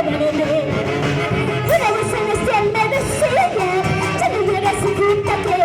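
Huancavelica-style huayno played by a band, a lead melody with sliding notes over a steady rhythm.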